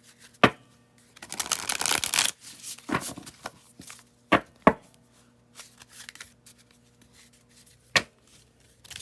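Tarot cards being shuffled by hand: a few bursts of papery rustling, broken by four sharp taps or snaps of the cards.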